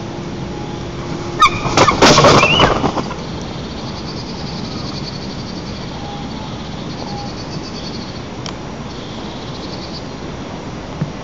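White-tailed eagle arriving on the nest: a burst of heavy wing flaps and rustling sticks about a second and a half in. A steady outdoor hiss follows, with faint songbird trills in the background.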